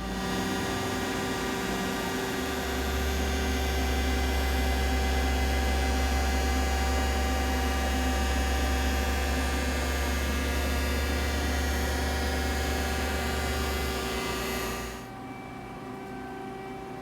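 Haas SL-40TLB CNC lathe running under power: a steady hum with several fixed whine tones, growing louder about two and a half seconds in, then mostly cutting off about fifteen seconds in, leaving a lower hum.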